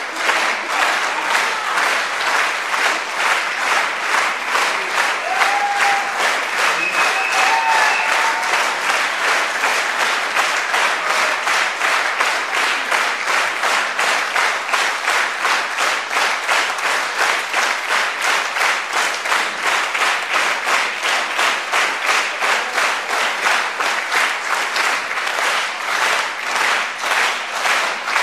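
Theatre audience applauding in rhythmic unison, clapping together at about two to three claps a second.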